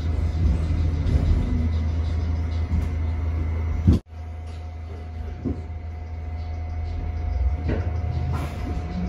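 Interior running sound of an R68 subway car: a steady low rumble with a faint constant whine above it. About four seconds in the sound cuts off abruptly and picks up again a little quieter.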